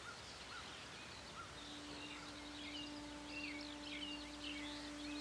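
Several birds chirping and singing over a faint outdoor hiss. About a second and a half in, a low held drone note enters beneath them and holds steady.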